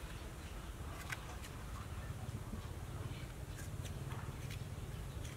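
A metal spoon scraping seeds and pulp out of a hollowed tomato half, giving a few light, separate clicks and scrapes, over a steady low rumble.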